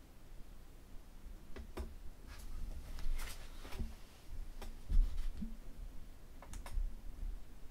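Handling noises on a table: scattered light clicks and taps, with one louder thump about five seconds in.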